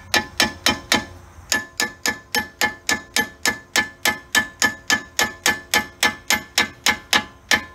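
Hammer tapping a 35 mm socket down onto a front axle nut: about four ringing metal-on-metal blows a second, with a short pause about a second in.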